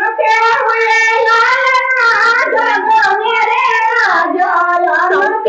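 Women singing a song together, in long drawn-out notes that rise and fall.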